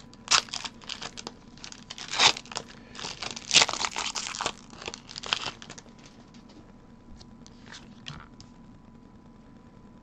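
Foil wrapper of a Pokémon trading card booster pack being torn open and crinkled by hand: a run of sharp crackles over the first six seconds or so, then only a few faint ticks.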